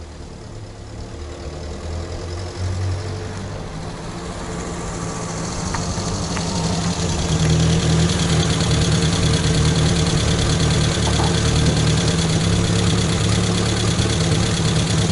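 Suzuki SJ410's swapped-in Datsun A12 four-cylinder engine drawing closer and growing louder, then idling steadily once the jeep pulls up and stops about seven seconds in.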